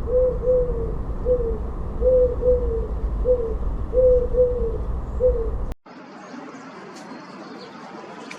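A bird calling in short hooting notes near one pitch, singly or in pairs, about once a second, over a heavy low rumble. About two-thirds of the way through, the sound cuts abruptly to a quieter background with faint high chirps.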